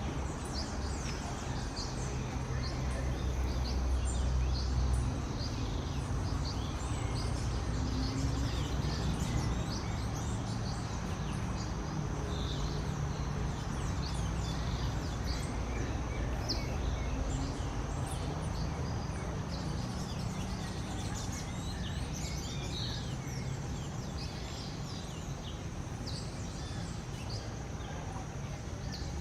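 Birds chirping: many short, high calls scattered throughout over a low steady rumble, with a thin steady high-pitched tone running underneath.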